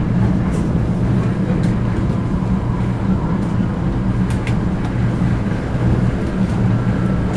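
Vienna U-Bahn metro train running at speed, heard from inside the carriage: a steady, loud low rumble from the wheels and motors, with a few faint clicks.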